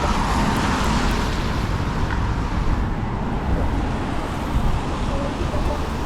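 Street traffic: a vehicle swishes past in the first couple of seconds, over a steady traffic hiss, with wind rumbling on the microphone.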